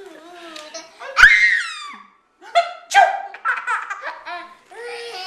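A sudden, loud sneeze about a second in, then a 14-month-old toddler laughing hard in a run of short belly laughs.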